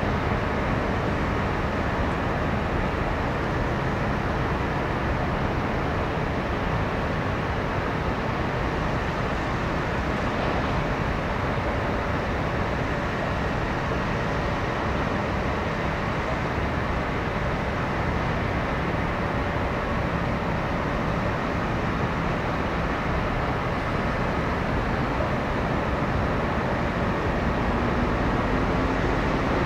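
Steady rumble of distant engines and machinery, with a faint hum that rises slightly in pitch near the end.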